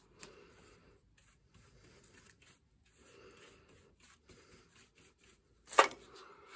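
A run of short, faint hand strokes across a hand-scraped cast-iron surface, then a single loud, sharp knock near the end.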